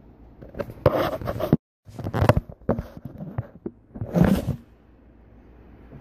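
Handling noise from the recording device as it is moved and propped up: irregular bursts of rubbing and scraping with sharp knocks and clicks, three bursts in all, the middle one about two seconds in. The sound drops out completely for a moment about a second and a half in, and it settles down after about four and a half seconds.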